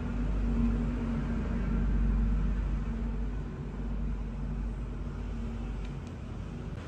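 Low, steady rumble of a vehicle engine running, loudest in the first couple of seconds and fading out about six seconds in.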